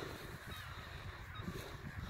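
Wind rumbling on an outdoor microphone, with a few faint bird calls in the distance.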